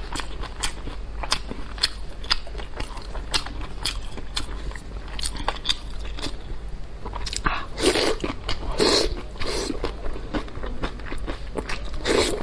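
Close-miked eating sounds of a person chewing beef and kimchi: a quick run of wet mouth clicks and smacks, with louder bursts of eating noise in the second half.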